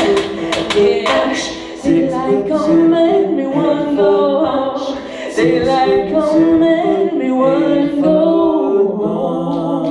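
Live singing, mostly unaccompanied voices holding long sung notes that shift in pitch every second or so, recorded through a phone's microphone.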